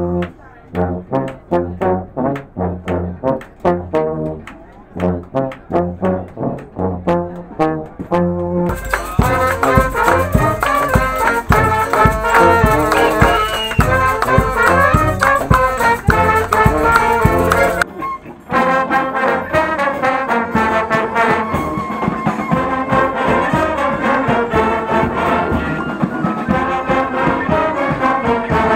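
Brass band playing. For the first nine seconds it is a clipped, detached riff over a bouncing low bass line. Then the full band comes in louder, with sharp percussive strokes. There is a brief break at about eighteen seconds before the playing carries on.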